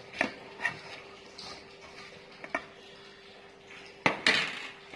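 Kitchen utensils and dishes clinking and knocking, a few separate strikes with the loudest cluster about four seconds in, over a faint steady hum.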